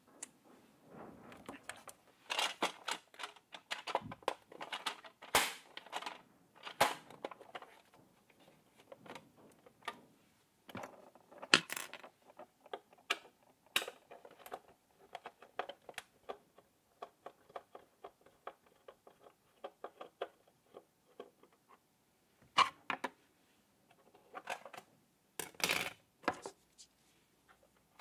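Hard plastic toy RC car being handled and knocked, then a screwdriver turning screws in its plastic underside, making a long run of small rapid ticks and scrapes. Louder plastic knocks come near the end.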